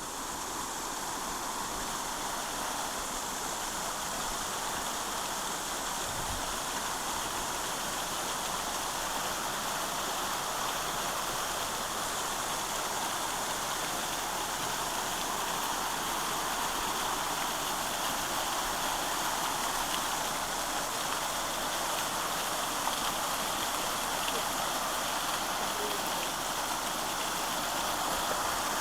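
Small wet-weather drainage waterfall, water pouring and splashing in a steady, even rush.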